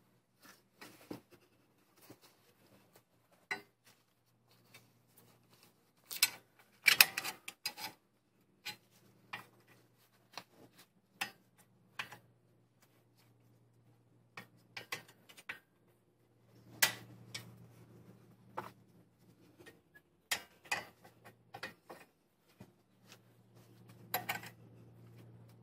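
Metal brake pad hardware on an Infiniti G37S caliper clicking and clinking as the pads, retaining pin and spring clip are fitted by hand: scattered sharp metallic taps, the loudest cluster about six to eight seconds in.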